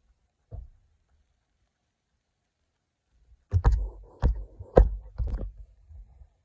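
Handling noise from a phone camera being moved and adjusted: a soft bump, then, about halfway through, a quick run of about five sharp knocks with rubbing between them.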